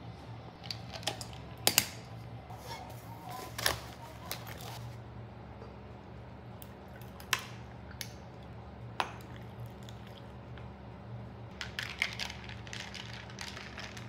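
Kitchen handling sounds: a few sharp knocks and clicks of lunch-jar lids and containers set on a countertop, then a run of light clinks near the end as a spoon stirs in a glass of iced coffee, over a steady low hum.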